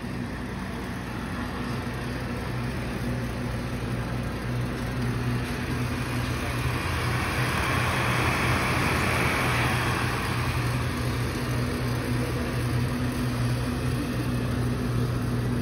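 Probat Probatino coffee roaster's electric fan motor running: a steady hum under a rush of moving air, the air noise swelling about halfway through as the microphone comes up to the fan grille.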